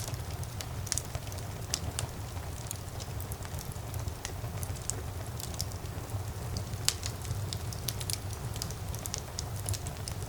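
Wood fire burning in a fireplace: a steady low rumble of the flames with frequent irregular sharp crackles and pops, one louder pop about seven seconds in.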